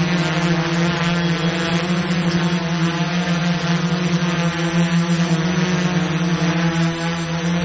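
Quadcopter drone's propellers humming steadily, one unchanging pitch with overtones.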